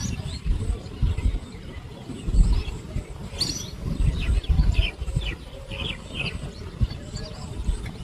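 Small birds chirping briefly several times between about three and six seconds in, over an irregular low rumble of wind on the microphone.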